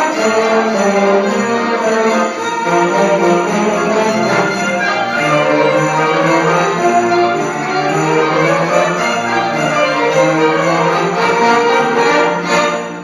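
Senior high school orchestra playing, with sleigh bells jingling steadily over sustained ensemble notes.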